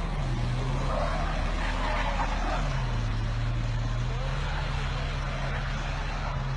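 Audi S6 quattro engine held at high revs under load, wheels spinning in snow. Its pitch sags and climbs back about two and a half seconds in.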